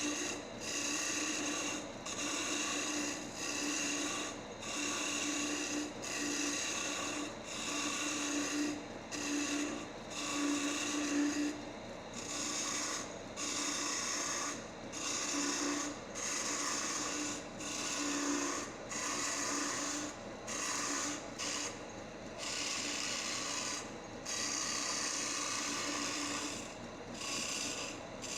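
Wood lathe spinning a wooden spindle while a turning chisel cuts it in many short passes, a scraping hiss that breaks off and starts again roughly once a second.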